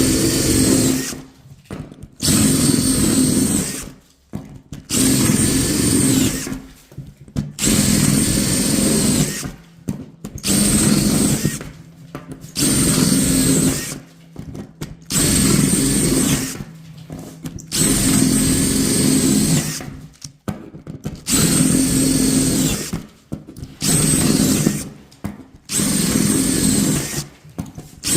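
Power drill running in about a dozen short bursts of a second or two each, with brief pauses between, as the drill bit bores small holes through the corners of socket cut-outs in a splashback.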